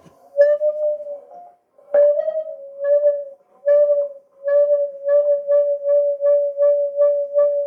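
Acoustic feedback from the cigar box guitar's piezo pickup through a Honeytone mini amplifier: a whistling single-pitched howl. It comes in a few long swells at first, then pulses on and off about three times a second.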